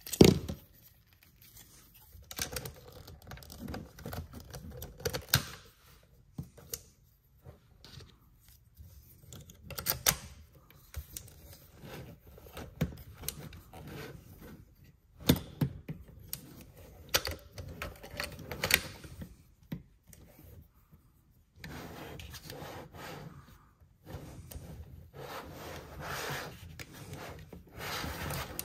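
Hard plastic clicks, knocks and rubbing from a large plastic robot toy as hands pose its jointed arms and turn it on a table. The clicks come irregularly, with a sharp knock right at the start and softer rubbing near the end.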